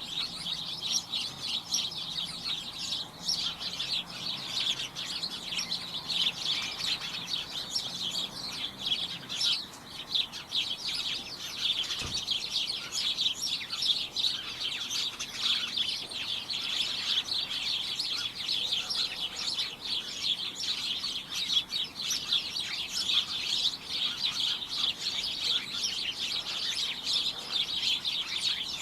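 Many small birds chirping and tweeting at once in a dense, unbroken, cacophonous chorus, with a single click about twelve seconds in.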